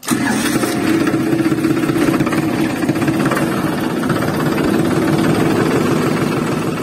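Small battery-powered motor of a homemade toy tractor running, a rapid, steady mechanical chatter like a tiny engine idling.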